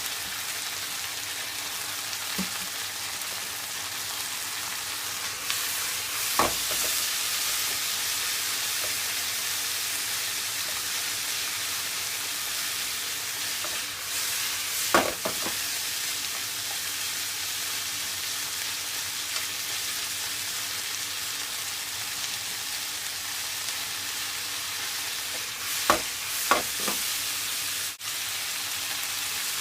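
Stir-fry sizzling steadily in a frying pan, with a few sharp knocks of a cooking utensil against the pan.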